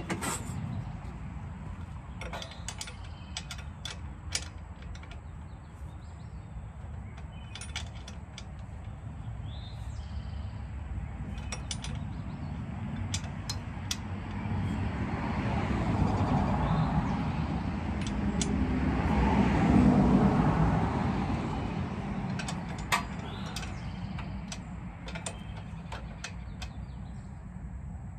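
Scattered clicks of a ratchet and hand tools tightening the mounting bolts of a new starter on a 13 hp riding-mower engine, over a low rumble that swells in the second half and fades again.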